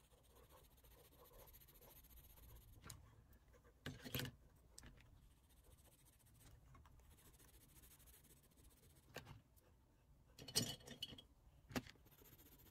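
Near silence, with faint rubbing of fingers blending oil pastel on paper and a few light clicks and knocks from handling the art supplies, the clearest about four seconds in and near the end.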